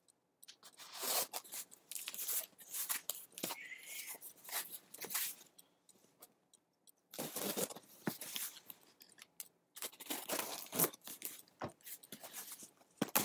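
Knife slitting the packing tape on a cardboard shipping box, with irregular bursts of tape tearing and cardboard scraping and a short pause about halfway through.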